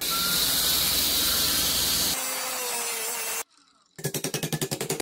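Belt grinder running, its belt grinding a wooden piece pressed against the contact wheel: a loud, dense grinding hiss over a low motor hum, for about three and a half seconds. After a short pause, a rapid rhythmic rasping of about ten strokes a second near the end.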